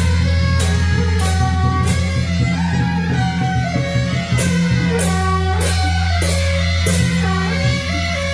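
Procession band of suona shawms playing a nasal stepping melody over clashing hand cymbals, with a deep steady hum underneath.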